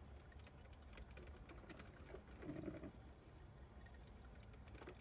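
Near silence: faint room tone with a low hum and a few soft ticks.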